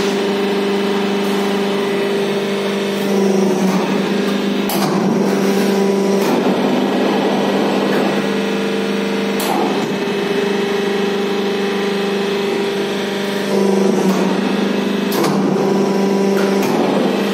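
Hydraulic CNC press brake running, its pump motor giving a steady hum that shifts in pitch several times as the ram cycles through bends. Sharp clicks of the sheet metal being handled come in between.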